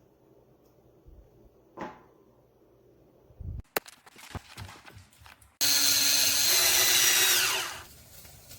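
A few light handling clicks and knocks, then a BLACK+DECKER cordless drill starts suddenly and runs at a steady high whine for about two seconds before winding down as it is released.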